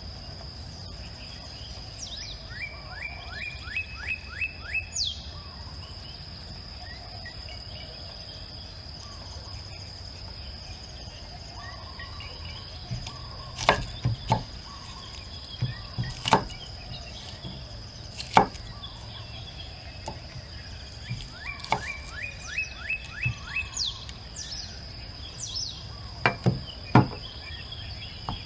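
Sharp knocks of wood being chopped, about six in the second half, over a steady high insect drone. A bird sings a short repeated trill twice.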